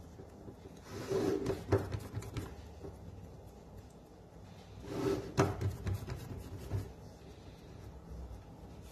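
Hands pressing soft tart dough up the sides of a round tart pan and shifting the pan: two short bouts of rubbing and soft knocking, about a second in and again about five seconds in.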